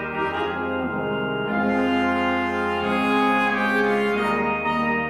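Slow background music of long held chords that change every second or two.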